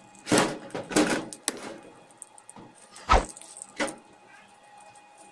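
Steel parts of a homemade clamp vise knocking and clanking against a steel workbench as the vise is handled and lifted away. There are several separate clunks, the loudest about three seconds in.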